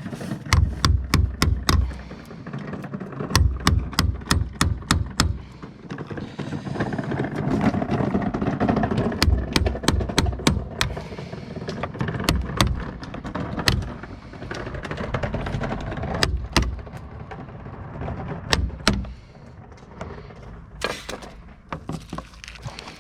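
Quick clusters of sharp taps and knocks, with scraping in between, as a tool is worked in at the corner of a plastic window strip to prise it off the frame.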